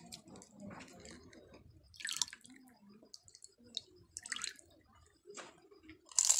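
Tamarind water (pani puri water) dripping and splashing back into a glass bowl as a potato-filled puri is dipped in it and lifted out, in a few short splashes. Right at the end a loud crunch as the crisp puri is bitten.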